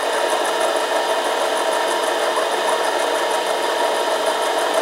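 Harbor Freight 7x10 mini lathe running steadily at speed with a hum and whine from its variable-speed motor and gears, while the tool takes a slight cut on the edge of an aluminum lens barrel.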